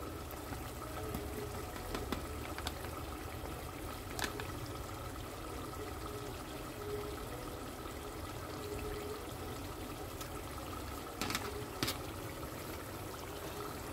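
Tomato stew simmering in a pot: a steady low bubbling, with a few small clicks.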